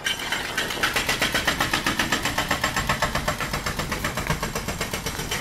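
Demolition machinery at work: a rapid, even pounding of about seven strokes a second that starts and stops abruptly.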